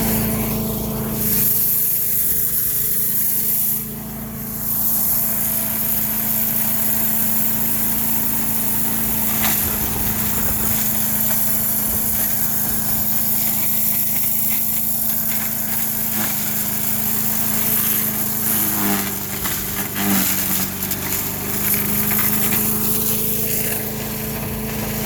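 Craftsman 4 HP wood chipper/shredder's small gasoline engine running steadily, its pitch sagging briefly about two-thirds of the way through before recovering.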